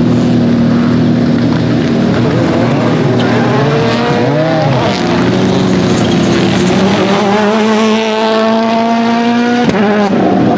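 Rally car engine under hard throttle: the revs dip and recover about four seconds in, then climb steadily for several seconds before dropping suddenly near the end.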